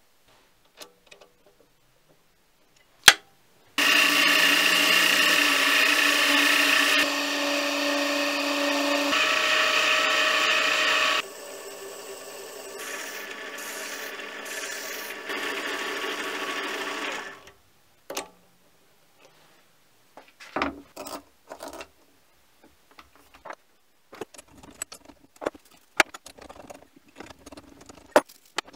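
A sharp click, then a mini lathe driven by a sewing-machine motor starts and runs for about fourteen seconds, its level and pitch stepping down a few times; in the quieter later stretch a hand file is worked against the spinning metal part. After the spindle stops come scattered light clicks and knocks of metal parts being handled.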